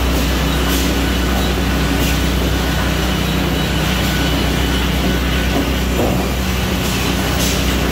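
Multi-rip saw line running steadily while boards are fed through on powered rollers and ripped into strips: a loud, constant machine drone with a deep hum underneath and a few faint knocks.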